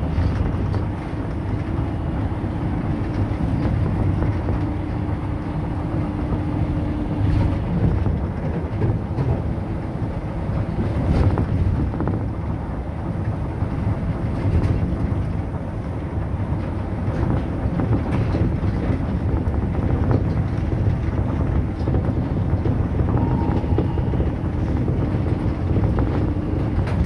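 Cabin running noise of an Osaka Metro New Tram rubber-tyred automated guideway car under way: a steady low rumble, with a faint steady hum for the first seven seconds or so and a few brief knocks.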